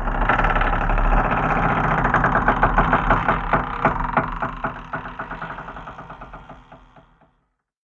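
Door opening sound effect: a long run of rapid clicking pulses that starts abruptly, then slowly fades out and stops after about seven seconds.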